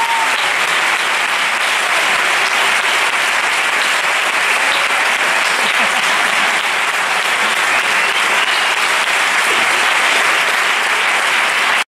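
Audience applauding, steady and loud, until it cuts off suddenly near the end.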